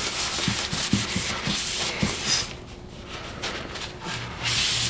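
A cloth rubbed along a wooden table leg and apron, wiping on polyurethane finish: soft rubbing strokes that grow quieter in the middle and pick up again near the end.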